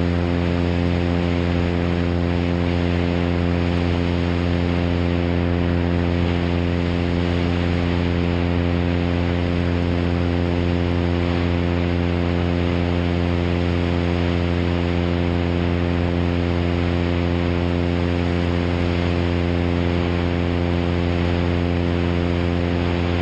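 Cessna 182's six-cylinder piston engine and propeller running at steady power as the plane climbs. It is a continuous drone with air rushing over an outside microphone.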